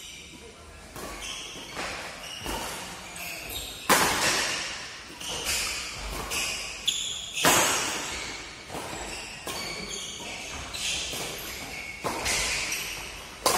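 Badminton rackets striking the shuttlecock in a fast doubles rally, about one hit a second, some hits much harder and louder than others, each echoing in a large hall.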